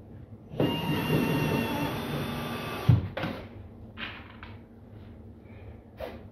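Cordless drill-driver running for about two seconds with a steady whine, driving a screw through wire mesh into a wooden board, and ending in a sharp knock. A few light clicks and handling sounds follow.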